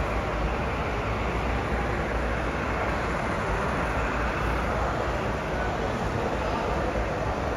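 A model passenger train running along layout track, under a steady wash of exhibition-hall noise.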